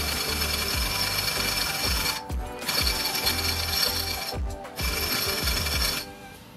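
Pneumatic impact wrench hammering on the input yoke nut of a Spicer DS404 tandem-axle differential, in three bursts with short pauses about two and four and a half seconds in, stopping about six seconds in.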